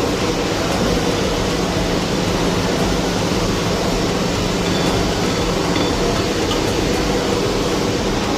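Machinery running steadily: an even mechanical noise with a low hum, unchanging throughout.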